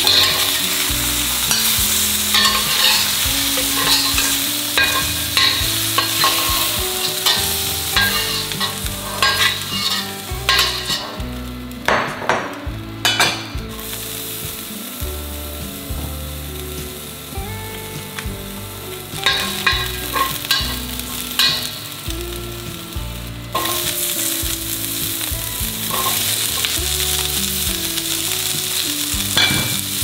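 Food sizzling in a hot stainless steel wok as it is stir-fried, with a metal spatula repeatedly scraping and clicking against the pan.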